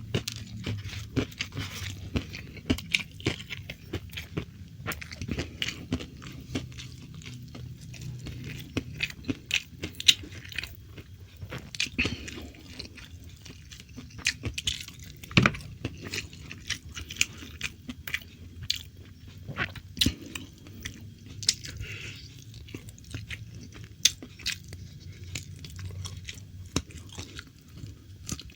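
Close-up eating sounds: a person chewing and crunching food with the mouth near the microphone, with many irregular sharp crunches and smacks and one louder crunch about halfway through.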